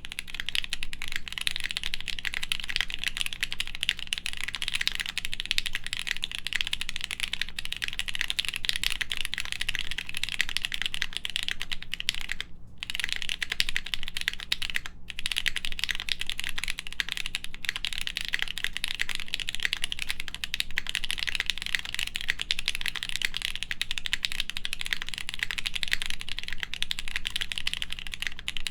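Continuous fast typing on a plateless Studio Kestra Nue mechanical keyboard with lubed H1 switches and GMK keycaps: a dense, even stream of key clacks. Typing pauses briefly twice, about halfway through.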